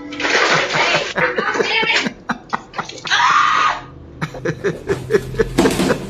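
A person laughing and shrieking: long breathy outbursts broken by runs of short rapid laughs.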